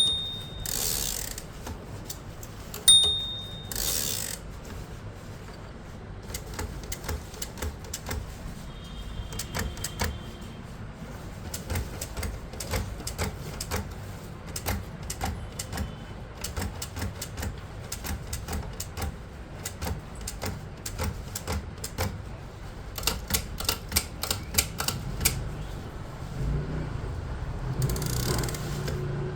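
A Perkins Brailler braille typewriter in use: a long run of mechanical key clicks as braille dots are embossed. Near the start there are two loud sharp strikes, each with a brief ring and a short swish after it, and near the end a longer swishing sound.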